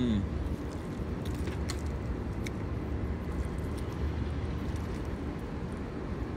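Steady low outdoor rumble with a few faint clicks of forks against plastic food containers as spaghetti is eaten.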